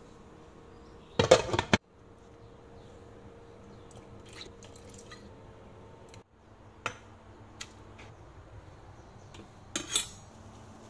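Kitchen clatter of pots and utensils: a short burst of knocks and clinks about a second in, a few light single clinks later, and another brief clatter near the end, over a faint steady hum.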